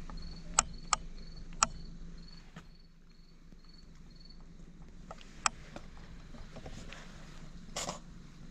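An insect chirping: a high, even chirp repeating about three times a second, stopping about four seconds in. A few sharp clicks come over it, and a short rushing noise comes near the end.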